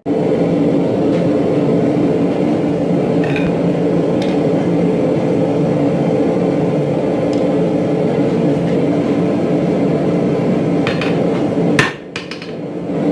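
Steady mechanical drone of forge-shop equipment, with a few light ticks. Near the end comes one sharp metal strike, and the drone stops.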